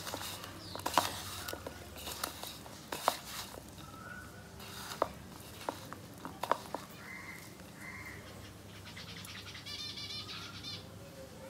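Hands squeezing and tossing ivy gourd strips in a spice coating in a bowl, with soft rustles and sharp clicks through the first several seconds. Later a bird calls twice, then sings a fast trill near the end.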